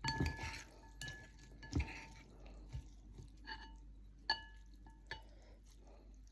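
Eating utensils clinking against a bowl while the dry noodles are tossed, about half a dozen light clinks a second or so apart, each with a short ring.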